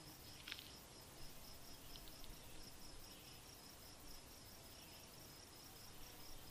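Faint insect chirping, a high pulse repeating about four times a second, with one brief higher chirp about half a second in.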